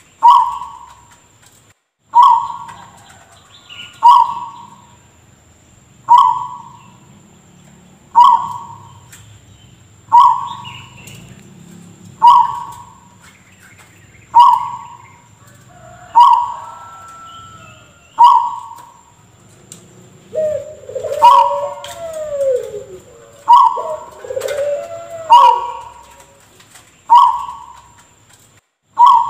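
A zebra dove (perkutut) gives a short, cough-like call over and over, about every two seconds. Each call is sharp at the start and fades quickly. Other falling, whistled bird calls join in the second half.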